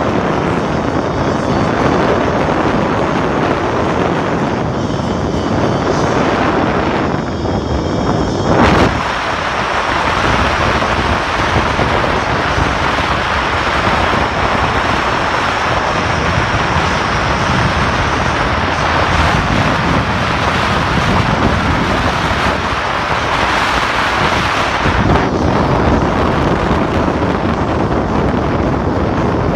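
Strong wind buffeting the microphone: a loud, steady rush with no tones in it. About nine seconds in there is one brief loud bump, and the deep rumble is lighter for a while after it.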